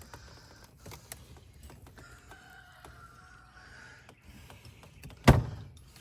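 Faint small clicks and rustling, then one loud, sudden knock a little past five seconds in.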